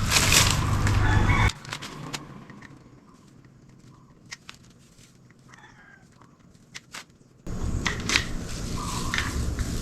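Chickens clucking with a rooster crowing, over loud background noise. A quieter stretch in the middle holds a few clicks.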